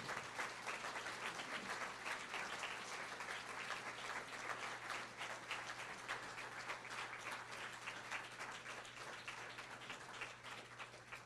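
Audience applauding, the clapping slowly thinning out near the end.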